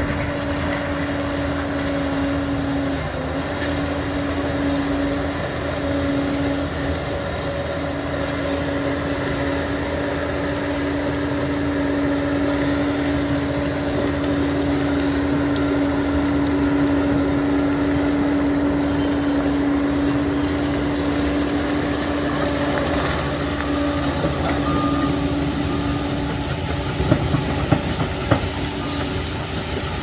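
Liebherr PR 746 crawler dozer working, its diesel engine running steadily with a constant high whine over a continuous rumble, and a few sharp knocks near the end.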